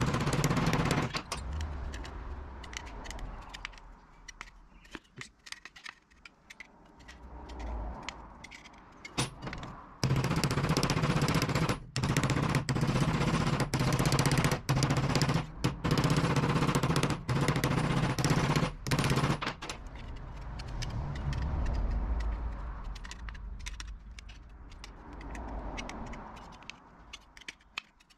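Ball-pein hammer flattening creases in an aluminium angle strip, the blows sped up fourfold into a rapid clatter of impacts. A steady low hum runs under the louder middle stretch.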